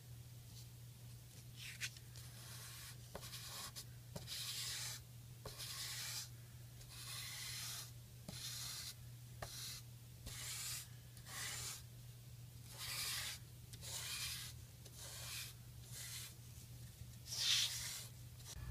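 Blue pastel chalk rubbed across white paper in repeated scratchy strokes, about one a second, colouring in a sky; the last stroke, near the end, is the loudest.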